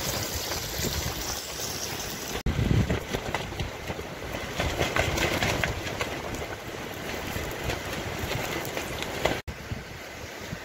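Strong gusting wind, around 40 mph, rumbling on the microphone, broken twice by a sudden short dropout, the second near the end.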